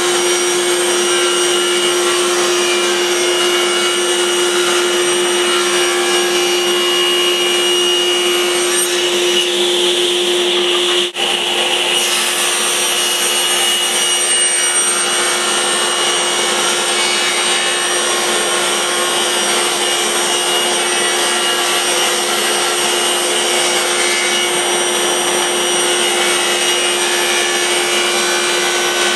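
Woodworking router running at a steady high-pitched whine while wood is fed past the bit, cutting moulding, with a momentary dropout about eleven seconds in.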